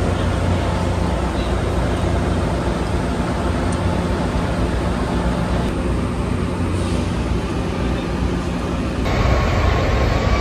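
Diesel locomotive idling with a steady low hum, heard over general station-platform noise. The sound changes abruptly near the end and grows a little louder.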